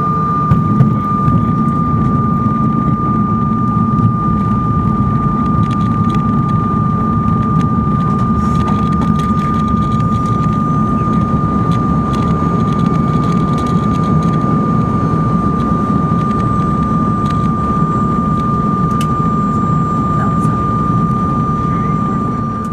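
Cabin noise of a Bombardier Challenger business jet rolling along the runway: a steady, loud engine rumble with one constant high whine running through it.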